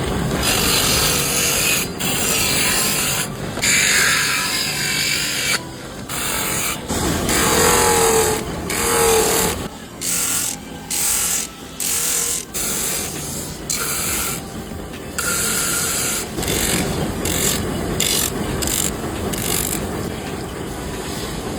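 Power tool grinding animal horn, a rough, noisy sound that keeps cutting in and out as the tool touches the horn and is lifted off, in quick short passes during the second half.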